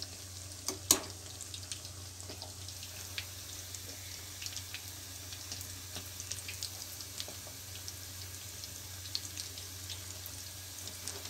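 Bread-wrapped potato bondas deep-frying in hot oil in a kadhai: a steady sizzle with scattered small crackles and pops, and one sharp knock about a second in.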